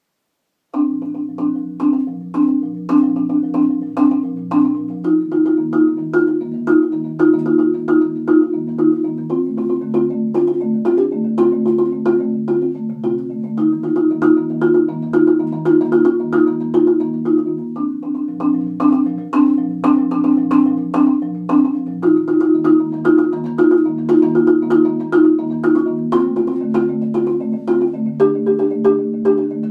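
Marimba played with four yarn mallets: sustained chords built from quick, repeated strokes, the harmony moving to a new chord every few seconds. It starts about a second in.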